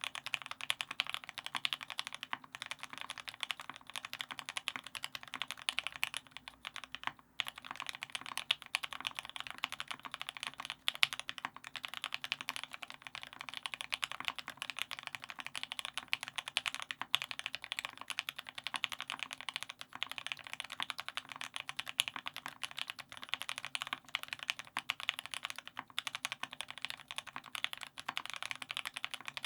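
Continuous fast typing on a TX84 v1 custom mechanical keyboard with an aluminium plate, linear Tealios V2 switches lubed with Krytox 205g0 and fitted with Cherry black top housings, and GMK Mizu keycaps. Dense run of keystroke clacks with brief pauses about seven seconds in.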